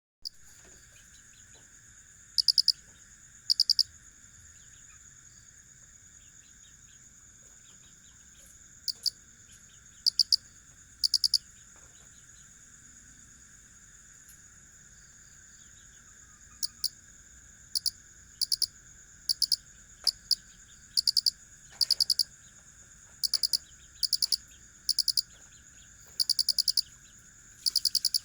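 Crickets chirping: a close cricket gives loud short chirps of a few quick pulses each, sparse at first and then about one a second, over a steady high-pitched trill from other insects.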